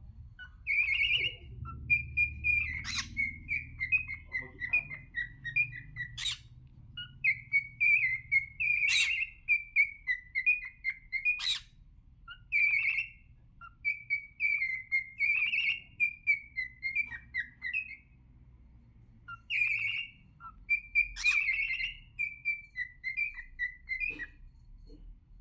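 Cockatiel whistling its song: long runs of quick warbling notes with short pauses between phrases, and a sharp loud chirp now and then.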